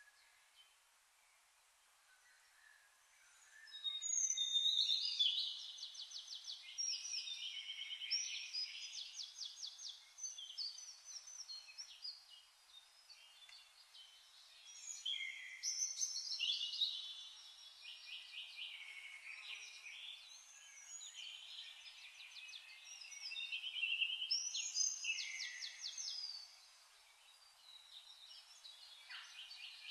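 Birdsong: songbirds singing phrases of fast trills and repeated chirps. The first few seconds are faint, and the singing comes in several bouts, starting about four seconds in.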